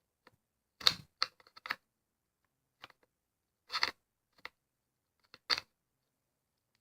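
Irregular clicks and knocks of a rail-mount flashlight being handled and fitted onto an AR-15's rail, some in quick clusters, with short pauses between.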